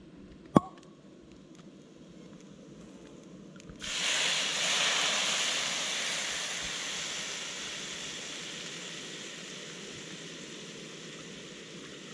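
Wine poured from a bottle into a hot frying pan of browned meat on a gas-canister camping stove: a loud hiss and sizzle breaks out suddenly about four seconds in and slowly dies down. A single sharp pop about half a second in.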